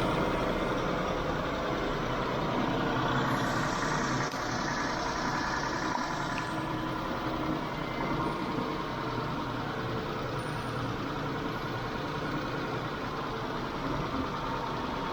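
Mitsubishi 6G72 V6 engine idling steadily at raised revs just after a start. The hydraulic lifters are still tapping under it, less pronounced than before, a sign the lifters are worn despite a lifter additive.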